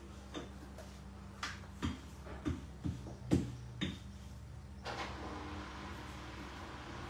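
Irregular knocks and taps of a wooden board and kitchen utensils against the counter, about seven in the first four seconds. A steady hiss starts abruptly about five seconds in.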